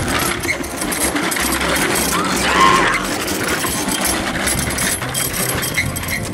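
A child's small bicycle with training wheels rattling and clattering as it rolls over paving stones.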